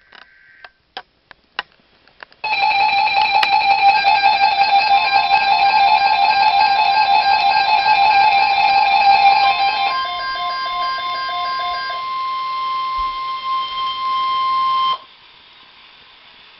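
Weather radio alert: electronic alarm beeps in several pitches sound together over the steady 1050 Hz NOAA Weather Radio attention tone. The beeps drop out around ten and twelve seconds in, and the steady tone goes on alone until it cuts off near the end. A few sharp clicks come before it starts.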